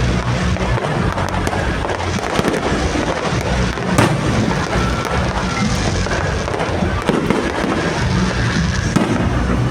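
Fireworks display: a continuous barrage of crackling bursts and bangs, with one sharper report about four seconds in.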